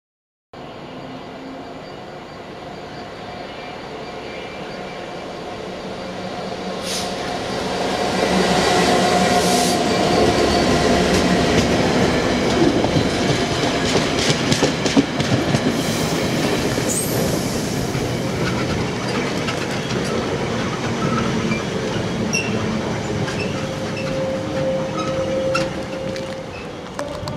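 A Class 66 diesel freight locomotive approaching and passing, followed by its train of wagons rumbling and clattering over the rails. The noise starts about half a second in, builds to its loudest around eight seconds in, and a thin steady wheel squeal comes in near the end.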